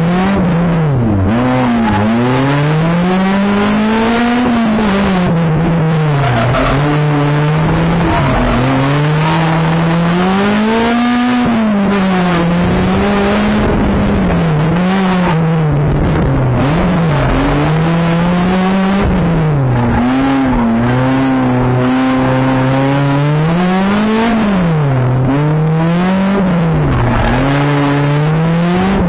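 A gymkhana car's engine heard from inside the cabin, revving hard and constantly, its pitch climbing and dropping over and over with quick dips and blips between the longer climbs.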